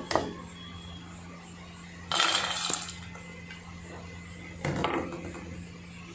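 A wire-mesh strainer knocks twice against the fryer at the start. About two seconds in, freshly fried french fries are tipped into a stainless steel bowl with a metallic rattling clatter, and there is a shorter clatter near five seconds. A steady low hum runs underneath.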